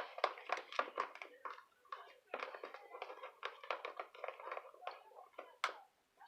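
A spoon or mixing tool stirring fluffy slime mixture of glue and shaving foam in a bowl, making a quick, irregular run of small taps and clicks.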